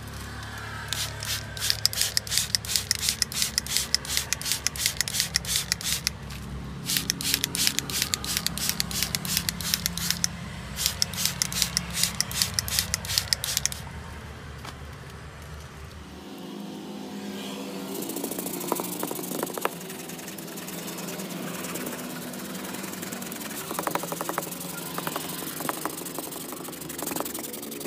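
Aerosol foam cleaner can shaken hard, its mixing ball rattling in three runs of quick strokes. Then a softer hiss and rubbing as the foam goes onto the fabric door panel.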